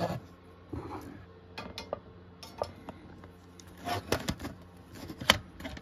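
Light, scattered clicks and clinks of small metal hand tools and parts being handled on a workbench during soldering, with a sharper click near the end.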